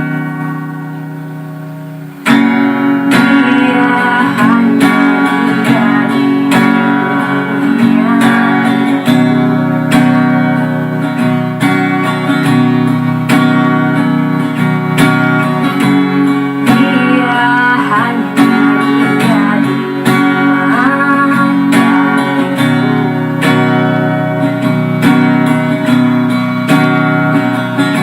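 Guitar music. A held chord fades for about two seconds, then plucked guitar playing with sliding, bending melody notes over a steady low bass carries on.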